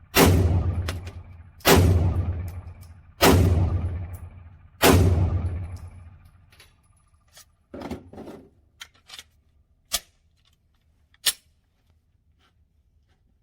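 Four slow, evenly paced shots from a Glock 43X 9mm pistol, about a second and a half apart, each followed by a long echo. Several fainter sharp cracks and clinks follow.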